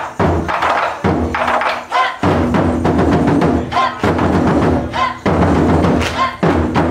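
Taiko drum ensemble playing, with heavy drum strikes about every second or so and a low ringing after each.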